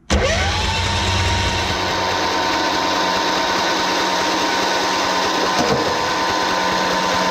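Lawn tractor's Kohler engine cranking on its electric starter. The starter whine rises quickly as it spins up, then holds steady. The engine does not fire: there is no spark at the test plug, which the owner takes for a fried ignition coil.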